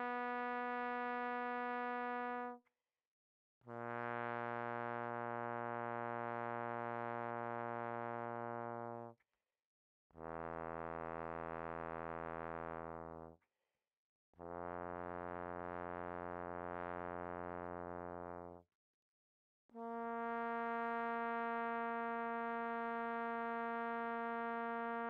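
Recording of a tenor trombone playing long tones: five sustained, steady notes, each a few seconds long, with about a second of silence between them. The first and last notes are higher; the middle three are low.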